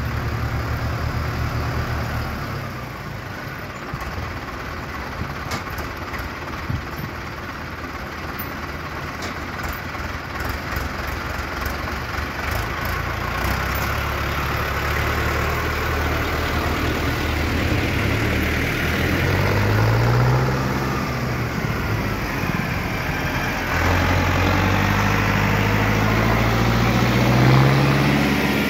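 Mahindra tractor's diesel engine running under the load of a full sugarcane trailer, growing louder as it comes past and revving up twice in the second half.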